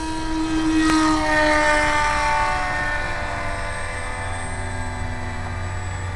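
Electric motor and propeller of a radio-controlled plane flying past on takeoff under power: a loud, high whine whose pitch glides down from about a second in as the plane moves away.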